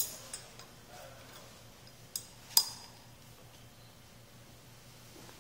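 Four light glass clinks from a glass pipette knocking against the neck of an amber glass bottle. The loudest comes about two and a half seconds in.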